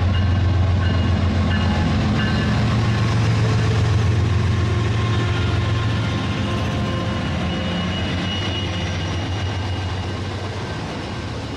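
Train running: a steady low rumble with a fast rattling texture, slowly fading over the last few seconds.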